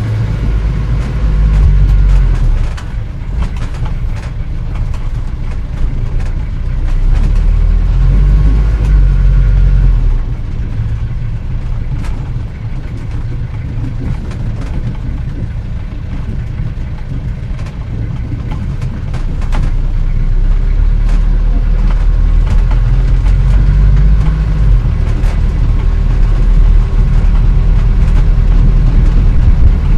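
Engine of a 1940-era car being driven, a low rumbling drone that rises and falls in pitch and loudness several times as it speeds up and eases off, louder over the last third. Frequent light clicks and rattles run through it.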